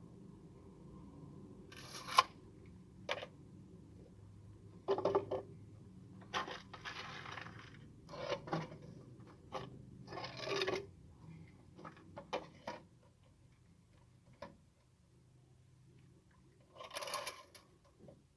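Scattered knocks, clicks and short scrapes of PVC pipe fittings and tools being handled, about ten separate noises at irregular intervals.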